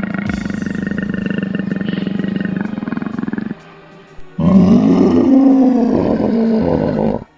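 A big cat growling with a rough, pulsing rumble. After a short pause it lets out a louder roar that rises and falls in pitch, then stops abruptly.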